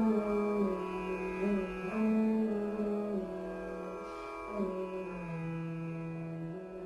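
Background instrumental music: a slow melody of long held notes stepping from pitch to pitch, growing gradually quieter.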